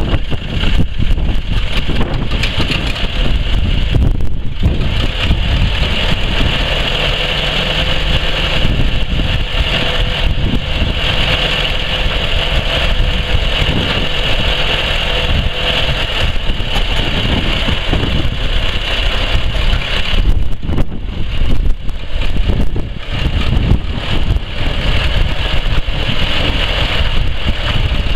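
John Deere 2020 tractor's four-cylinder gas engine idling steadily, then running more unevenly near the end as the tractor pulls away.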